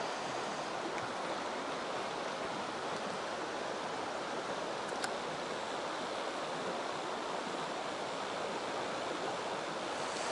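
Mountain stream running: a steady rush of flowing water, with one faint click about halfway through.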